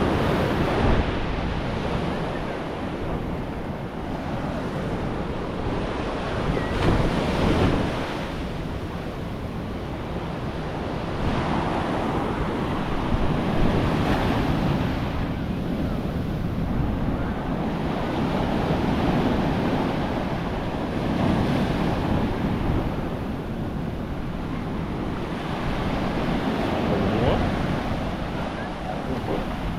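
Ocean waves washing onto a beach, swelling and easing every few seconds, with wind buffeting the microphone.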